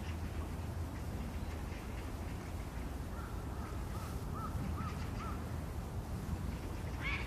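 A bird calling: a run of about six short, arched notes, roughly two to three a second, then one louder, harsher call near the end. A steady low rumble lies underneath.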